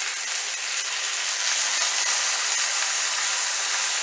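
Chicken pieces frying in a hot pan, sizzling as soy sauce is drizzled over them; a steady hiss that grows a little stronger about a second and a half in.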